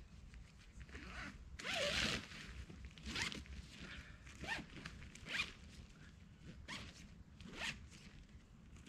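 Zipper pulled in a series of short strokes, about six in all, the longest and loudest about two seconds in.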